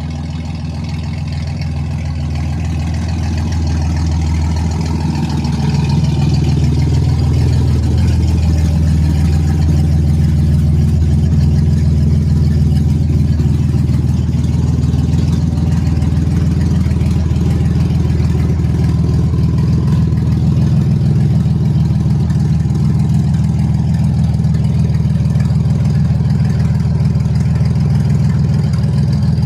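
Chevrolet Camaro V6 engine idling, with an exhaust leak that makes it louder than it should be. It grows louder over the first few seconds, then settles into a steady idle.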